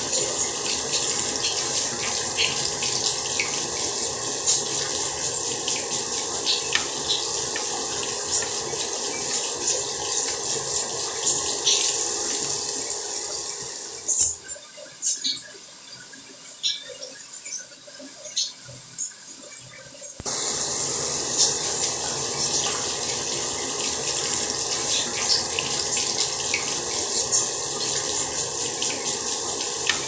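Light running water, a steady trickle with little drips and splashes through it. About halfway through the flow falls away for several seconds, leaving only scattered drips, then starts again suddenly.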